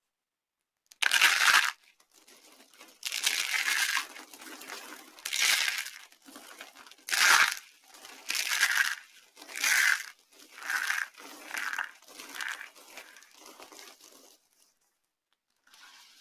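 Dry soap crunching and crumbling as it is crushed, in about ten separate crunches with short pauses between, then one brief crunch at the end.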